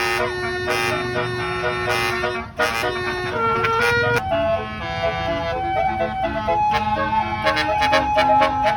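A tour bus's multi-tone basuri telolet horn playing a melody: held notes that step up and down in pitch, the first held about two seconds, later ones shorter.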